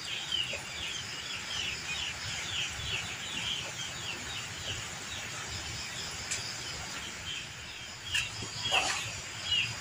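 Chicks peeping over and over, short falling cheeps a few times a second. Hands rustle damp rice bran, with a few soft knocks near the end as it is scooped into a plastic bucket.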